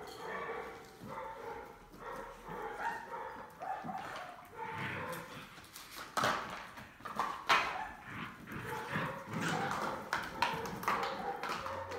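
Smooth collie puppies play-growling, whining and yipping while tugging at a toy, with claws clicking and scrabbling on a wooden floor, busiest from about six seconds in.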